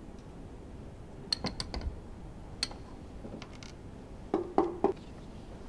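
Metal clicks and clinks from a Honda RA100E V10 piston and connecting-rod assembly being handled: a scatter of light clicks, then three sharper knocks in quick succession with a short ring near the end.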